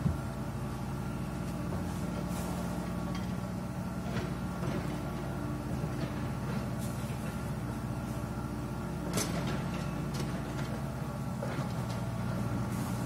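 A steady motor or engine hum with several held tones that stays unchanged throughout, with a few light clicks on top, the clearest about two-thirds of the way through.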